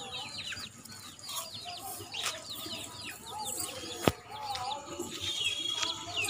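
A flock of young white chickens peeping and clucking, many short falling calls overlapping one another, with a single sharp click about four seconds in.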